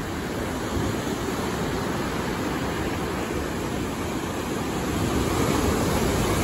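Heavy ocean surf of big, closing-out sets breaking and washing toward shore: a steady rushing wash of water noise that grows a little louder about five seconds in.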